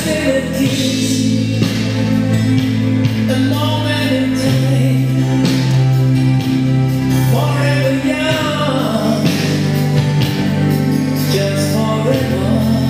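Recorded song playing: a sung vocal line over sustained chords.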